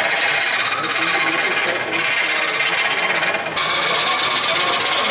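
A hollowing tool cutting the inside of a spinning wooden form on a wood lathe: a steady hissing shave as the shavings come off. The sound shifts about three and a half seconds in.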